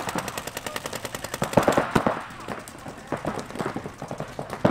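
Electronic paintball markers firing rapid strings of shots, many a second, with more than one gun shooting at once.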